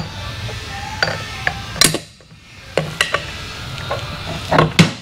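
Metal engine parts and hand tools clinking and knocking as a Harley Twin Cam engine is taken apart on the bench. There are several sharp metallic clanks, some ringing briefly, loudest about two seconds in and again near the end.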